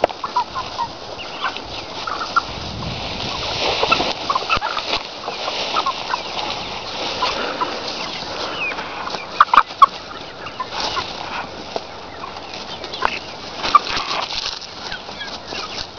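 A flock of meat chickens clucking on and off in short calls while they forage on fresh grass. A few louder, sharp sounds stand out about ten seconds in.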